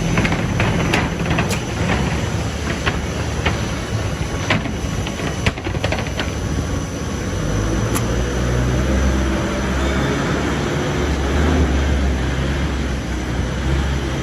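Industrial sanding machine for MgO board running with a loud, steady mechanical rattle and hum. Sharp clicks and knocks come through in the first several seconds, and a deeper low drone builds from about halfway through.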